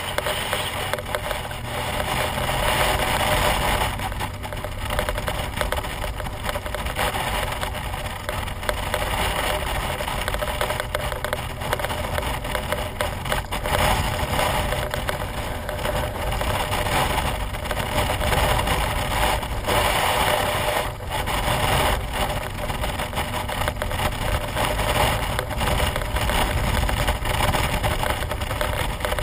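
BMW R1200GS flat-twin engine running steadily under way, mixed with rushing wind that crackles and buffets on the camera microphone.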